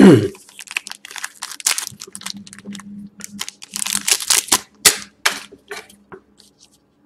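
Foil-wrapped trading-card packs crinkling and crackling in irregular rustles as they are shuffled and handled.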